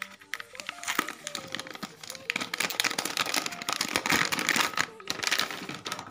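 Plastic crinkling and crackling as a metallised anti-static bag is pulled open and a hard disk slid out of it, loudest through the middle few seconds.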